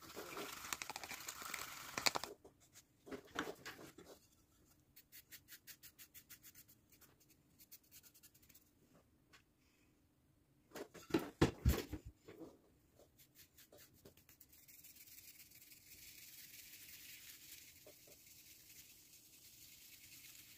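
Small hand-crafting sounds on a workbench: scratchy rustling at first, then a run of light, regular taps at about four a second, a few louder knocks about eleven seconds in, and from about fourteen seconds a steady faint hiss.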